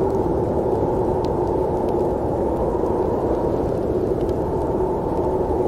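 Steady, deep snowstorm wind noise, muffled and even, with no gusts or breaks and little hiss above it.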